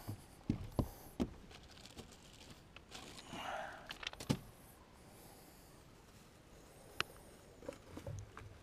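A few scattered light knocks and clicks, the loudest about four seconds in and a sharp one near seven seconds, over a quiet background.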